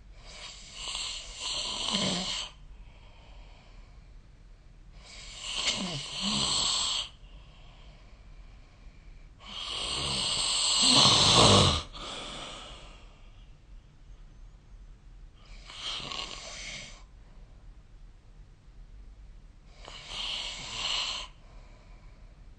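A sleeping person snoring: five snores about every five seconds, each lasting one to two seconds, the middle one the loudest and longest.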